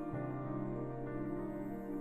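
Soft new-age ambient background music of long-held chords, with a new low note coming in just after the start.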